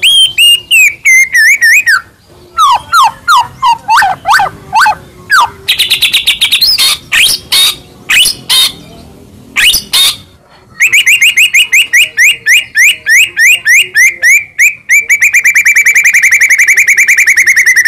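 White-rumped shama (murai batu) singing loudly, a varied song full of mimicked fill phrases: gliding whistles at first, then a burst of sharp rapid notes, and after a short pause a long run of repeated notes that speeds up into a fast trill near the end.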